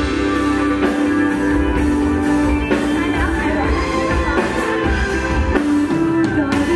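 Live pop-rock song: a female lead singer singing into a microphone over a band of electric guitar, bass and drum kit.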